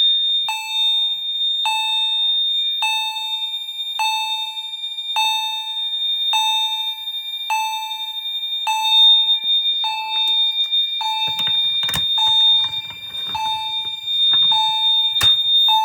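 Fire alarm system sounding in alarm during a test: a steady high-pitched tone from one appliance, with a struck, decaying chime-like tone from another repeating a little less than once a second. In the last few seconds there is rustling handling noise and a couple of sharp clicks.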